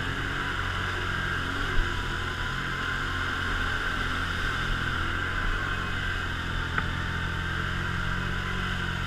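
Quad bike (ATV) engine running at a steady pitch while riding, with two short sharp clicks, one about two seconds in and one near the end.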